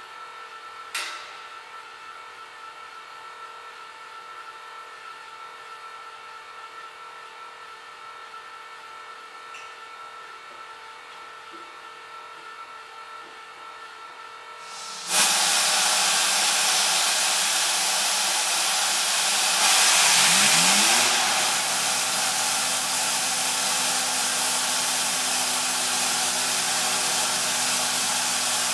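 Homemade turbojet engine running on a test stand. At first it gives a steady, fairly quiet whine made of several fixed tones. About halfway through it jumps abruptly to a much louder, steady rushing noise with a whine in it, briefly louder still for a second or so with a low rising tone, then it holds steady.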